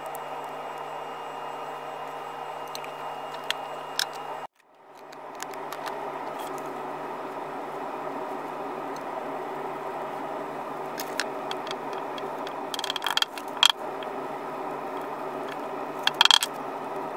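Steady hiss and hum of room noise, broken once by a short dropout about four and a half seconds in, with scattered light clicks and metallic clinks of leather sheaths and their spring-steel belt clips being handled on a wooden bench, clustered near the middle and just before the end.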